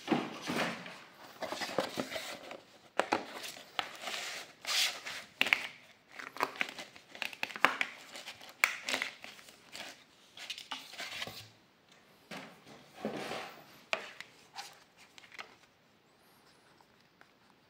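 Cardboard packaging and thin plastic ties rustling and crinkling as hands free a plastic action figure from its box insert, with irregular scrapes and rubs. The handling noise dies away near the end.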